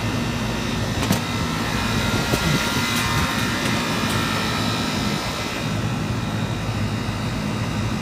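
Three-phase air-conditioning unit running steadily, its compressor and fan giving a low hum over a broad rushing noise, with one sharp click about a second in. The unit runs with its three-phase motor turning the right way after two supply leads were swapped.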